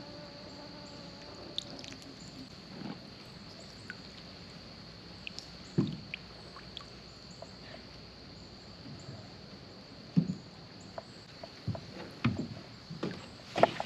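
A small paddled boat, a canoe or kayak, moving down a bayou: irregular paddle strokes and knocks against the hull, with water sloshing. Behind it runs a steady high insect whine.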